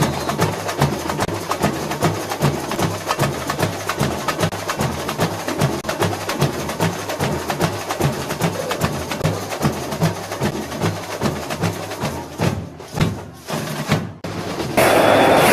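Percussion music: a fast, steady run of sharp clicks over low drum beats, a few a second. Near the end it cuts suddenly to a louder, noisy din.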